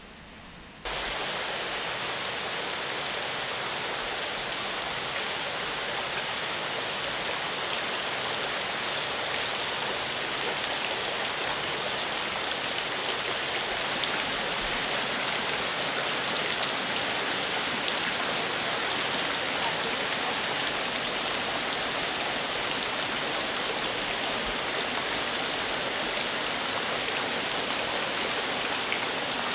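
Steady rush of water splashing and bubbling into a fish-hatchery tank holding newly hatched fish larvae, starting suddenly about a second in.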